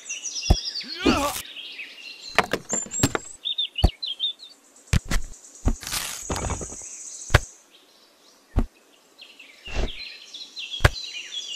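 Sharp knocks and clicks of miniature clay bricks and a small wooden board being handled and set down, about a dozen separate strikes, over chirping birds and a high insect drone.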